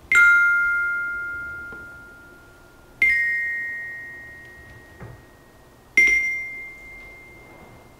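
Metallophone (tekkin) bars struck with a mallet, three strikes about three seconds apart; each clear high note rings out and fades slowly, the first and second with two notes sounding together.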